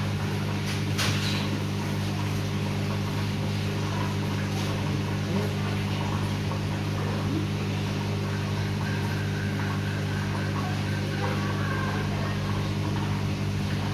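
A steady low mechanical hum with several fixed pitches, like an electric motor or fan, at an even level throughout. Near the end a faint thin whine rises and falls briefly.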